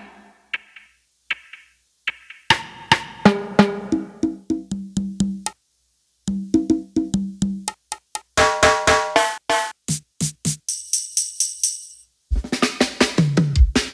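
Reggae beat parts played on a Maschine+ groovebox in short start-and-stop snippets with silent gaps between them: percussion hits, repeating keyboard and bass notes, then a run of high ringing notes and a falling bass line near the end.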